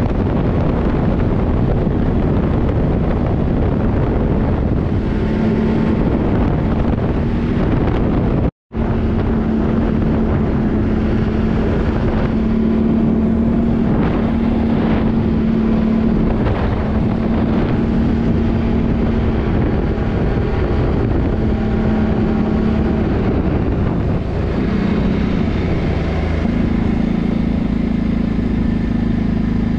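ATV engine running at a steady speed while riding, with wind noise on the microphone. The sound cuts out for a moment about a third of the way in, and the engine note drops briefly near the end before picking up again.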